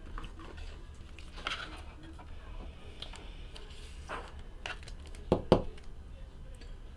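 Trading cards and card boxes being handled on a table: faint rustling and small clicks, with two quick knocks a little over five seconds in.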